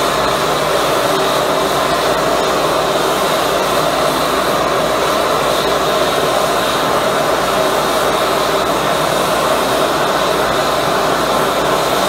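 High-velocity propane burner with compressed-air assist, running steadily: a loud, even rushing noise from the jet of flame and air that does not change.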